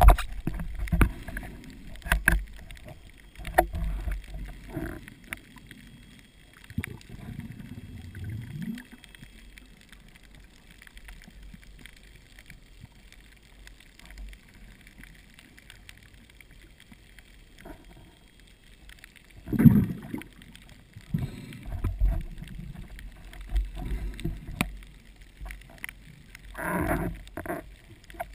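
Underwater sound of a shallow reef in the surge: a low, muffled rush of moving water with scattered clicks and crackles, and louder whooshes about twenty seconds in and again near the end.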